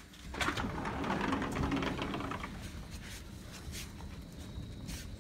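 Sliding glass door rolling open along its track, a rough rumbling scrape lasting about two seconds, followed by a quieter stretch with a few faint ticks.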